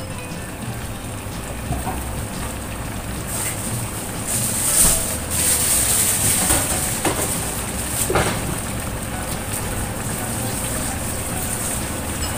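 Coconut-milk stew simmering in a steel wok over a gas flame: a steady bubbling hiss with scattered small pops, louder for a few seconds in the middle.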